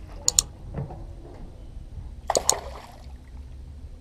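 Water splashing as a hooked largemouth bass is led into a landing net, with two sharp clicks near the start and a louder splash about two and a half seconds in.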